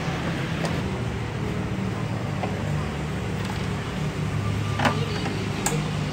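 Screwdriver prying at the seam of a CRT TV's plastic back cover, with two sharp clicks near the end, over a steady low drone.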